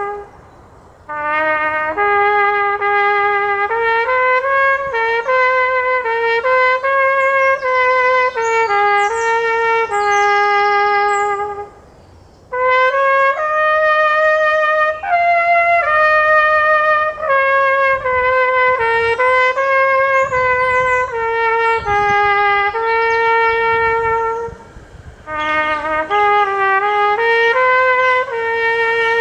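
Solo trumpet playing a slow melody of held notes, breaking off briefly between phrases about every twelve seconds.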